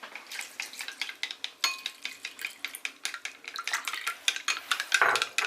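Egg mixture for steamed egg custard being beaten in a bowl, the utensil clicking quickly against the side several times a second. A brief louder sound comes near the end.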